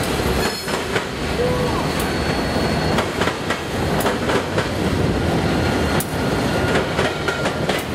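Tail end of a CSX freight train rolling past: the cars' wheels clack over rail joints with a steady rumble and a few brief thin squeals, and the rear diesel locomotive goes by in the second half.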